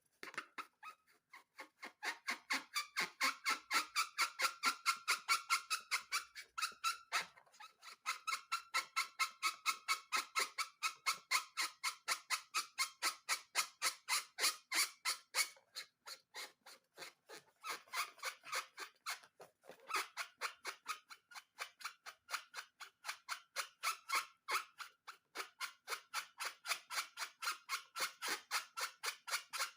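Slime being squeezed and pressed by hand, giving a quick, even run of sticky clicks about four or five times a second, with a few short breaks.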